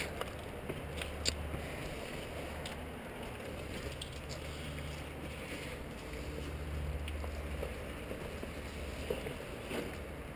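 People scrambling through a tight gap between granite boulders: scattered scuffs and light knocks of shoes, hands and gear against rock, a few seconds apart, over a low steady rumble.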